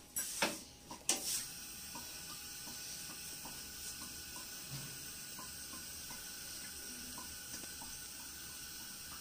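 Two sharp knocks of a bowl against the rim of a pressure cooker, then a faint steady hiss with light regular ticking.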